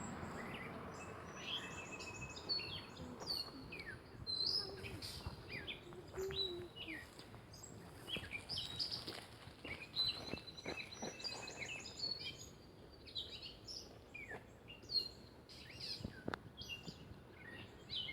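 Several songbirds chirping and singing, with many short, high calls overlapping and a rapid trill about ten seconds in.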